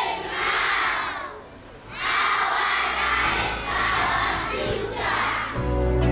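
A group of girls shouting and cheering together in several loud bursts, with a short pause after about a second. Music comes in near the end.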